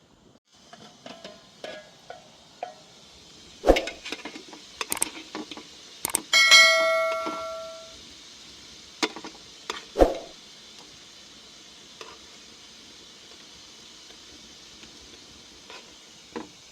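Dishes and metal cookware being handled: scattered clinks and knocks, with two louder knocks. A little past the middle, one strike rings out clearly for about a second and a half, like a cup or pot struck. A steady hiss runs underneath from about half a second in.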